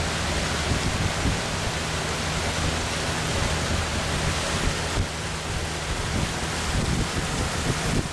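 Steady rush of wind on the microphone and moving water, with a low, even hum underneath, as heard from a boat under way.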